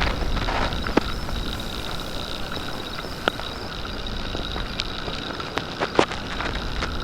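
Storm wind rumbling on the microphone, with a few sharp clicks or knocks scattered through it.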